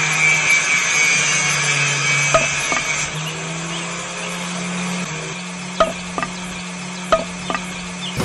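Small electric motor of a miniature homemade cut-off saw running steadily, its spinning disc cutting through thin green sticks, with a higher whine that stops about three seconds in. Several light, sharp clicks follow.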